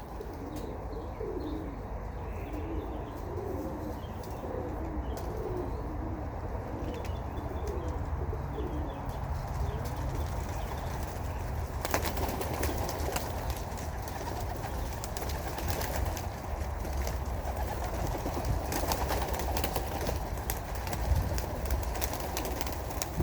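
Domestic pigeons cooing repeatedly for the first ten seconds or so. From about twelve seconds a louder rustle of many pigeons' wings flapping and clattering, with sharp clicks, joins in as the birds stir and take off.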